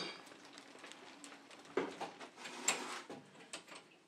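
A few light clicks and knocks of hands handling metal heating pipework and fittings, spaced about a second apart, over faint room hiss.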